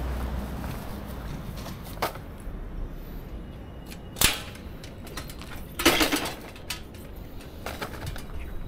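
A city bicycle being parked: a few separate sharp metallic clacks and knocks, the loudest about four seconds in, followed about six seconds in by a short rattling clatter.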